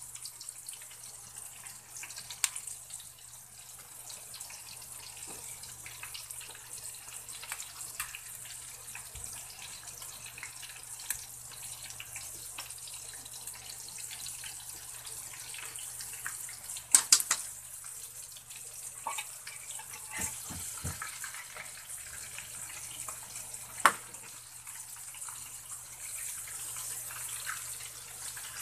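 Coated chicken wings deep-frying in hot oil in a wok: a steady sizzling hiss, with a few sharp clicks, the loudest a little past halfway. A low steady hum runs underneath.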